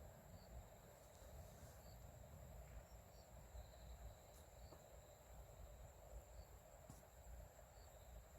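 Faint night insects: a steady high trill with soft chirps about once a second, over a faint low rumble.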